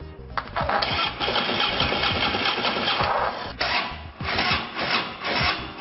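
Harley-Davidson V-twin motorcycle engine running, its level swelling and dipping as the throttle is worked.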